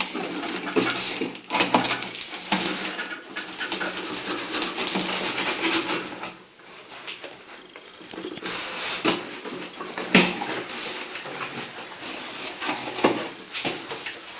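Cardboard and plastic packaging being opened and handled: dense crackling and rustling for about six seconds, then sparser rustles with a few sharp clicks and knocks.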